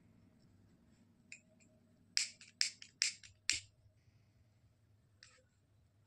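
Disposable lighter struck four times in quick succession, short sharp clicks about half a second apart, until the flame catches; a fainter click comes before and after.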